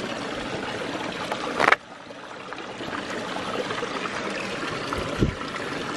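Creek water trickling and running over rocks, a steady rushing hiss. A brief loud rustle cuts in about two seconds in, and a low thump comes about five seconds in.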